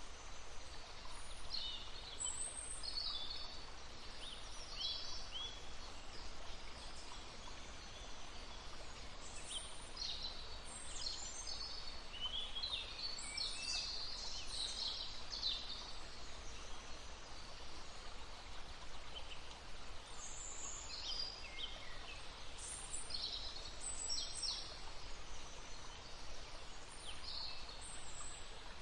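Several small songbirds chirping and trilling in short high phrases over the steady rush of a babbling stream.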